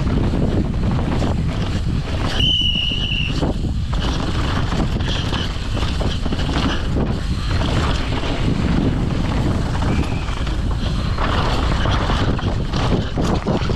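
Wind buffeting the microphone and knobbly tyres rumbling over a rough dirt trail on a fast downhill mountain bike run. There is a brief high squeal about two and a half seconds in.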